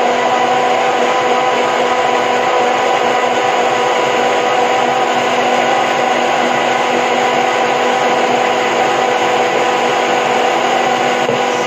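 Hand-held immersion (stick) blender running steadily in a plastic beaker, whirring at an even pitch as it blends egg and sunflower oil into an emulsion for alioli.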